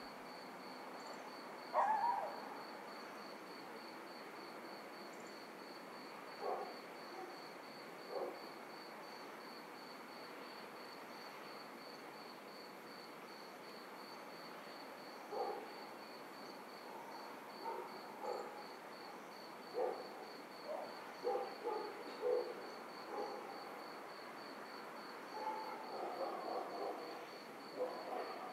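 Faint night ambience: insects chirping in a steady, evenly pulsing high-pitched train, with short calls scattered through it that grow more frequent toward the end.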